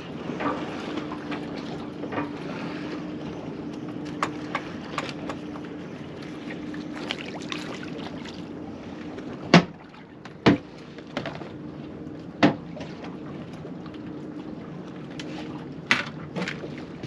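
Wind and water noise around a small open boat, with a faint steady hum through the first half. In the second half come a handful of sharp knocks against the boat as a black bream is landed.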